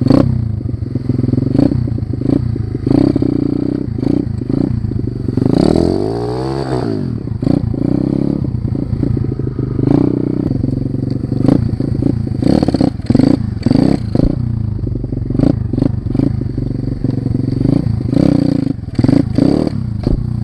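A 125cc four-stroke single-cylinder pitbike engine runs at riding speed, heard close up from the rider's helmet, with its revs rising and falling about six seconds in. The uploader puts the engine's sound down to the choke being left on. Frequent sharp knocks and rattles come from the bike over the bumpy dirt track.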